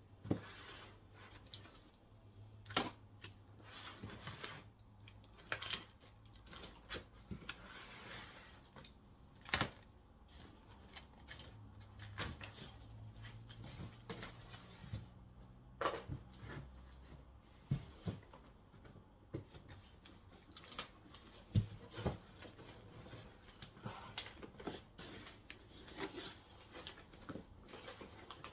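Irregular mechanical clicks and knocks, a few sharp ones standing out every several seconds, over a steady low hum: a cassette deck being handled.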